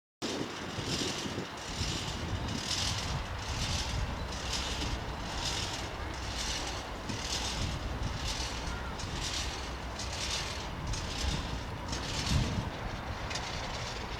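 Steady mechanical rumble with a high hiss that swells regularly about every three-quarters of a second, cutting in abruptly just after the start.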